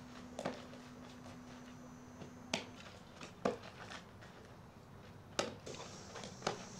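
Softballs popping into leather fielding gloves as throws are caught: about five sharp pops, irregularly spaced about a second apart, over a faint steady hum.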